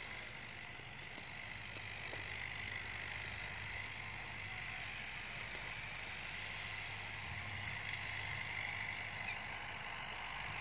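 Steady rural outdoor ambience: an even hiss with faint short chirps now and then.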